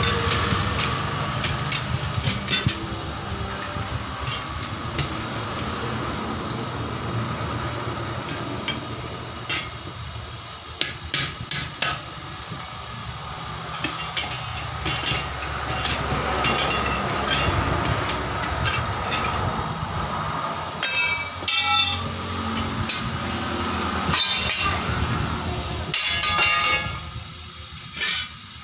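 Sharp metallic clinks and taps from a tyre lever working the steel rim and split lock ring of a truck wheel, coming in clusters, the busiest a few seconds before the end. A steady low rumble runs underneath.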